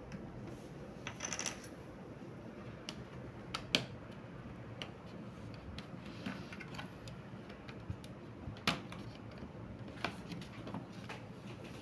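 Scattered light clicks and taps of small plastic and metal parts being handled while working open a laptop's bottom case. The sharpest click comes about four seconds in, with another near nine seconds.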